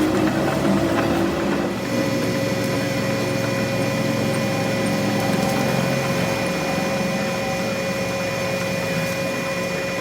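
A workshop machine running steadily, with a constant whine that sets in about two seconds in.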